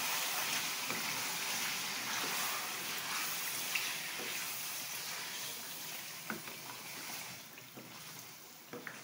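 Chicken sizzling as it fries in a wok, stirred with a wooden spatula after ginger-garlic paste goes in. The sizzle slowly dies down, with a few light knocks of the spatula against the pan about six seconds in and near the end.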